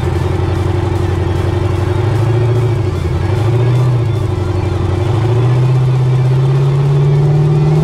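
Turbocharged LS V8 drag car engine accelerating on a boost test pull. Its pitch climbs, drops back once about halfway through, then climbs again.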